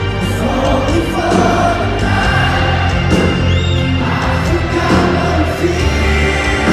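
Live rock band, with electric guitars, bass, keyboard and drums, playing an instrumental passage between sung lines, heard from within a large arena crowd.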